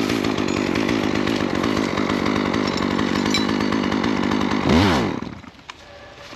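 Chainsaw engine running steadily, then about three-quarters of the way through it revs up briefly and winds down, cutting off abruptly; a few faint clicks follow.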